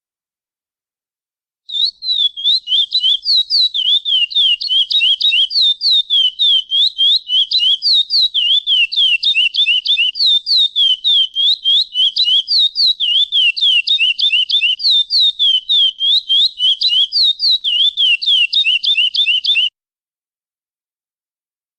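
Chestnut-bellied seed finch (curió) singing: a long, unbroken run of quick, clear whistled notes, each sliding down or up in pitch. The song starts a couple of seconds in and stops suddenly shortly before the end.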